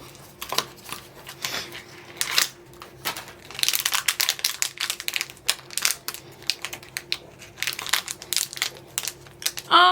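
Crinkling and rustling of a Loungefly mystery pin's blind-box packaging and wrapper being handled and torn open, in a run of crackles and small clicks that is densest a few seconds in.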